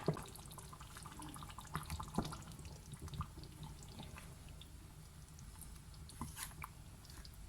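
Quiet kitchen sounds: a few faint, scattered light ticks and drips over a low steady hum.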